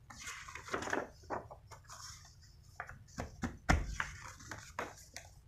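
Sheet of coloured paper rustling and crackling as it is handled and folded by hand, with a single louder thump a little under four seconds in.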